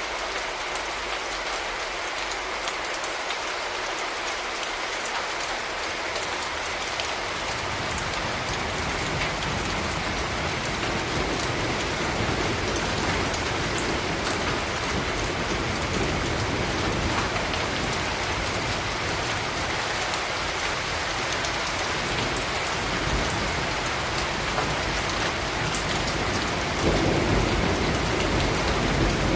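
Steady rain falling on city surfaces as an even hiss. A low rumble joins it about a quarter of the way in and grows louder near the end.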